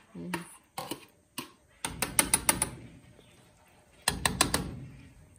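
Kitchen knife tapping and scraping against a plastic plate and the rim of an aluminium pot, knocking chopped green onion into a simmering fish stew. A few single taps come first, then two quick runs of four or five sharp taps, about 2 s in and 4 s in.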